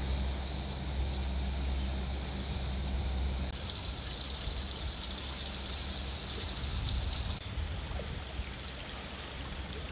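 Steady rushing wash of a river in flood, running high and fast. A low rumble sits under it for the first few seconds, and the sound changes abruptly twice, about three and a half and seven seconds in.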